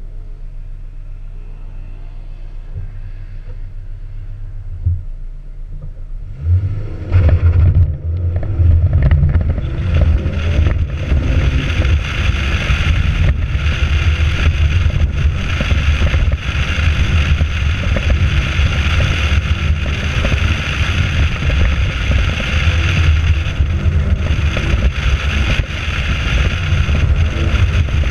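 Open-top sports car's engine idling at an autocross start, then launching hard about six and a half seconds in and running at high revs through the course. A steady rushing hiss of wind and tyres builds as the car gathers speed.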